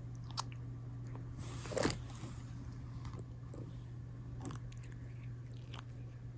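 A calico cat licking a person's hand: a run of small wet clicks and rasps from its tongue, with one louder one about two seconds in, over a steady low hum.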